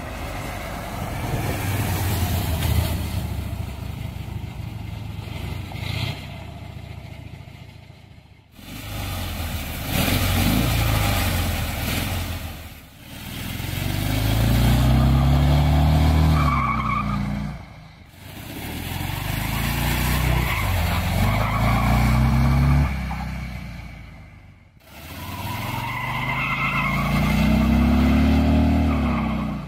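Custom Jeep-bodied hot rod powered by four Harley-Davidson Evolution V-twin engines, driving and accelerating hard. First comes a steady rumble, then three runs split by abrupt breaks, in each of which the engine note climbs, swells louder and falls away.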